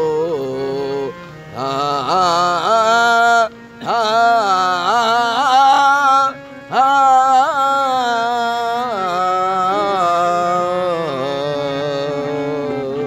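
Harmonium-accompanied manqabat singing: a man's voice holds long wordless melismatic phrases that glide and waver in pitch over the harmonium's steadier notes, with three short breaks between phrases.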